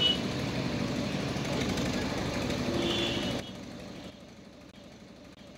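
An engine running with a rough, pulsing sound, which drops abruptly to a fainter steady engine hum about three and a half seconds in; a brief high chirp comes near the three-second mark.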